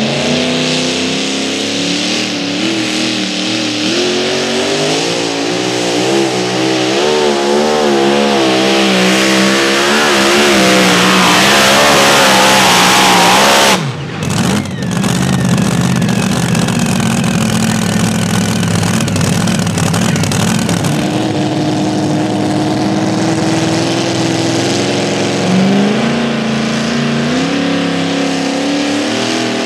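Big-block V8 of a super modified two-wheel-drive pulling truck revving up and running at full power under load while pulling the sled, its pitch climbing and wavering. It cuts off abruptly about 14 seconds in, and another pulling truck's engine then runs steadily and revs up again at the sled.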